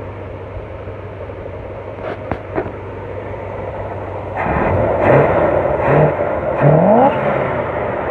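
1967 El Camino's Chevrolet 327 small-block V8 idling steadily, then revved in several quick blips of the throttle from about halfway in, the pitch rising with each rev.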